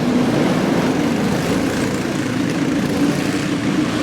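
Small cyclekart engine running steadily as a kart drives on the track, a lawn-mower-like sound.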